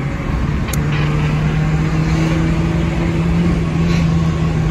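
Engine and road noise of a moving vehicle heard from inside the cab, with a steady engine drone that settles in just under a second in. A single short click comes just before the drone starts.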